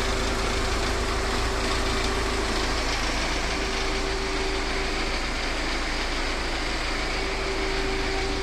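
VAZ-2109 (Lada Samara) four-cylinder engine running steadily, freshly rebuilt after a full overhaul.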